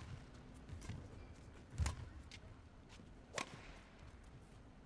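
Badminton rackets striking a shuttlecock in a rally: sharp cracks about a second and a half apart, a faint one at the start and two loud ones later, over a quiet arena hush.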